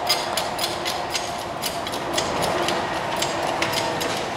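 Hydraulic bottle-jack shop press being pumped, clicking irregularly about two or three times a second, as it presses a car's hub and stub axle into a new front wheel bearing.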